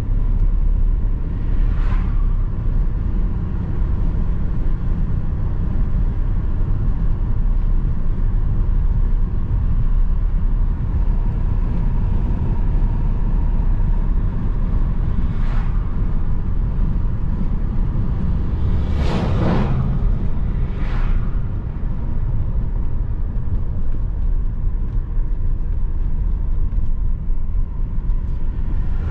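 A car driving: a steady low road and engine rumble, with a few brief hissing swells, the loudest a pair about 19 and 21 seconds in.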